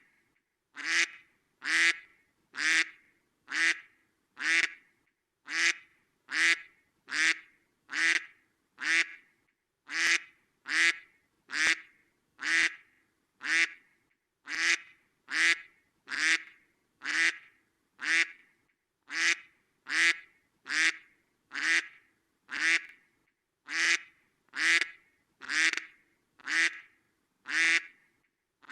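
Duck quacking over and over, one short quack about every second in an even rhythm, with clean silence between calls.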